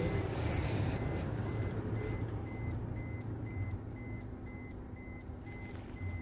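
A vehicle's electronic warning beeper repeating short, evenly spaced high beeps, over a steady low engine hum.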